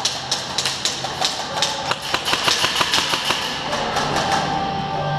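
Airsoft guns firing nearby: irregular sharp cracks and BB hits, with a quick rapid run of shots in the middle.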